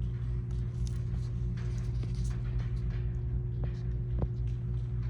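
Steady low hum with faint scattered clicks and taps as the two-wire plug of a license-plate light is pulled apart and reconnected the other way round.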